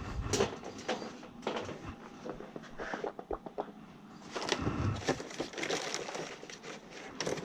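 Irregular small clicks, taps and scrapes of hands and a tool working on the wiring of an HVAC zoning control panel, with a busier cluster of clicks about halfway through.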